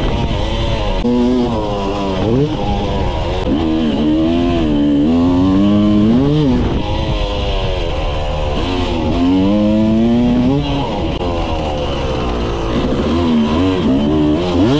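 Yamaha YZ250 two-stroke single-cylinder dirt bike engine being ridden hard, revving up and dropping back over and over with throttle and gear changes. A quick sharp rev comes near the end.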